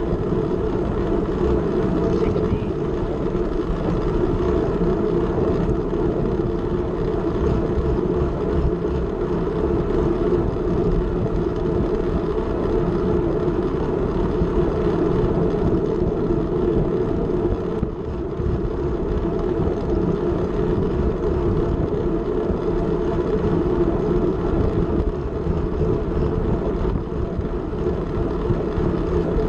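Steady rush of wind over an action camera's microphone mixed with rolling tyre noise from a track bike moving at race speed on a velodrome.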